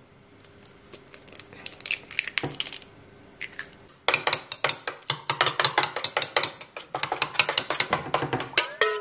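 A duck egg's shell being cracked and picked open over a stainless steel bowl, with a few faint clicks. From about four seconds in, a metal spoon beats the eggs in the bowl, giving rapid clinking of spoon against steel.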